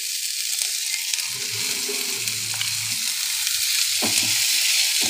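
Bitter gourd slices sizzling in hot oil in a metal kadhai as fresh oil is poured over them, the sizzle growing a little louder, while a spatula stirs the pieces.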